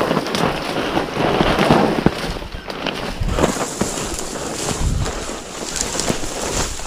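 Dry grass and briars rustling and crackling as a hunter wades through thick brush on foot, with wind buffeting the microphone.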